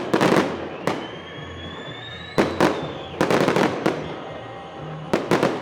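Fireworks salute shells bursting in quick volleys of several sharp bangs, each volley echoing away, with a faint whistle rising in pitch between volleys.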